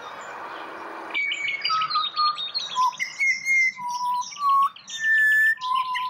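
Pied butcherbird singing: clear, pure whistled notes, several of them held, interleaved with quicker, higher chattering notes. The song starts about a second in.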